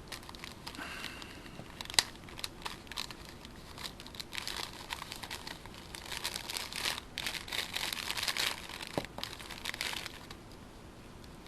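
Hands working small RC car parts, popping the wheel hexes off a spare axle: light clicks and rustling handling noise, with one sharper click about two seconds in and busier handling from about six to ten seconds.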